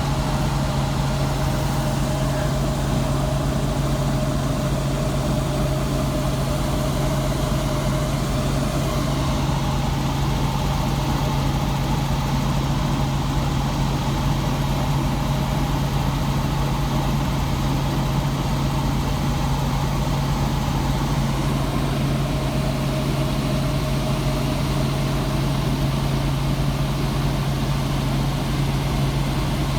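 Steady vehicle engine and road drone, with a constant low hum that does not rise or fall.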